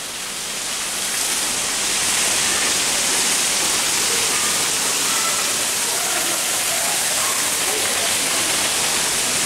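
Steady rush of falling water, a broad hiss that swells over the first couple of seconds and then holds level.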